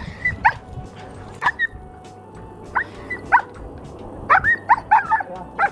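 Sled dog barking in short, sharp barks: a few spaced out at first, then a quick run of them in the last second and a half.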